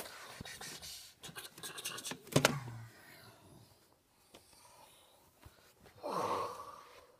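Handling noise from a plush toy held against a phone's microphone: fabric rustling, with several sharp clicks and a louder knock in the first few seconds, and a brief rushing sound a little after six seconds.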